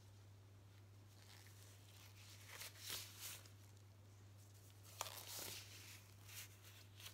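Faint crinkling and rustling of a thin plastic glove being pulled off and scrunched up by hand, in two bursts, the second starting with a sharp click. A steady low hum runs underneath.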